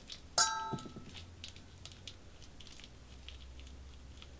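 A utensil knocks once against a stainless steel mixing bowl about half a second in, with a short metallic ring. It is followed by faint soft squishing and small ticks as cookie dough is squeezed from its tube into the bowl.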